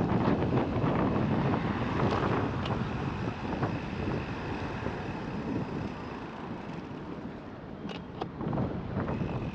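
Wind buffeting the microphone: a steady rushing noise that eases off through the middle, with a few faint clicks.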